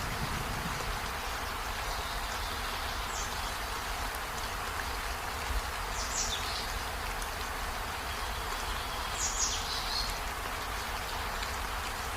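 Steady rain-like hiss, with a few brief high-pitched sounds about three seconds apart.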